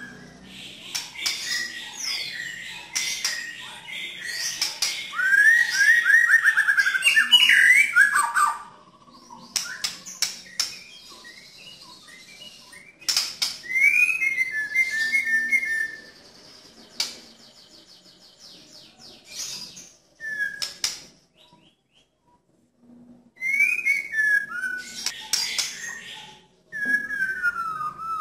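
White-rumped shama singing in loud bursts that mix clear whistles with rough, harsh notes, including a fast rising-and-falling trill a few seconds in and falling whistled glides later on. Near silence for about two seconds two-thirds of the way through.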